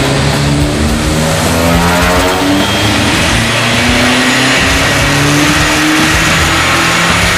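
Dodge Neon SRT-4's turbocharged 2.4-litre four-cylinder engine running hard on a chassis dyno, its pitch climbing steadily as it revs up through a dyno pull.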